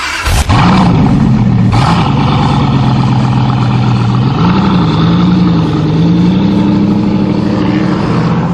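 Ford 2.9 V6 engine starting about half a second in, then running with a few light revs, its pitch rising and falling before it settles to a steady idle.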